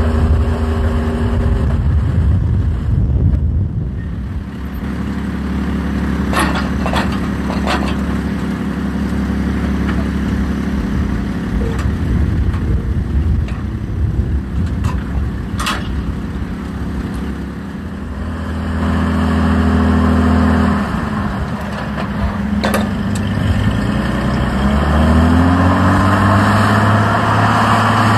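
Canadair CT-133 Silver Star jet trainer's Rolls-Royce Nene turbojet running in flight, a steady loud drone. The engine pitch dips about twenty seconds in, then rises over the next few seconds as power comes back up. A few sharp clicks are heard along the way.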